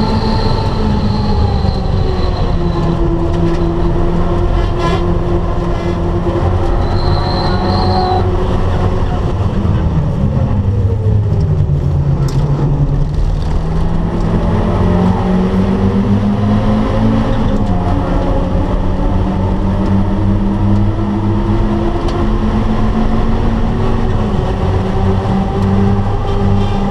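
Turbocharged Mazda MX-5's four-cylinder engine heard from inside the cabin while it laps a race track. The engine note holds steady, falls in pitch about ten seconds in, climbs back over the next few seconds, then holds again.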